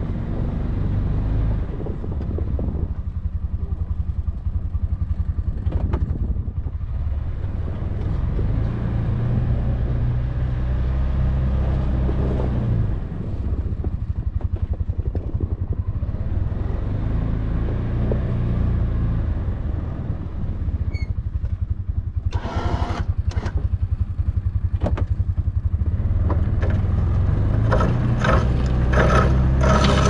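Can-Am Defender HD7 side-by-side's single-cylinder engine running as it drives and pushes snow with a front-mounted steel plow. Scraping and clattering from the plow blade on the snow-covered gravel come in from about two-thirds of the way through and grow denser near the end.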